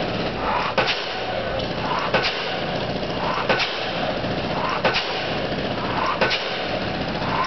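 Diesel pile hammer driving a steel pile, striking five regular blows about every second and a half over the steady running of the piling rig. A short rising tone leads into each blow.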